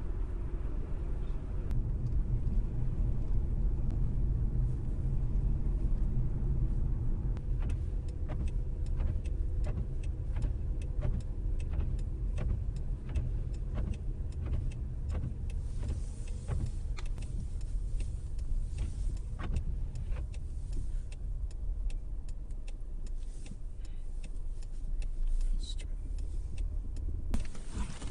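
Steady low rumble of a car driving, heard from inside the cabin, with scattered faint clicks through the second half.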